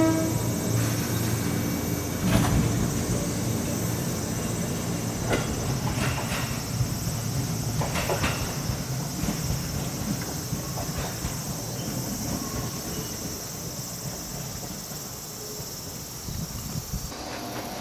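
A train running on the rails, with a few scattered wheel clacks over rail joints while its rumble slowly fades. Insects chirp steadily in the background.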